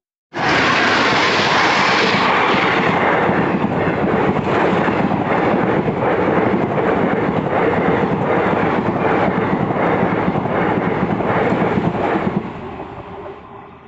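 Indian Railways passenger coaches passing close by at speed. The wheels make a loud rush on the rails with a regular clickety-clack over the rail joints. The sound cuts in abruptly after a brief silence and fades as the last coaches go by, about twelve seconds in.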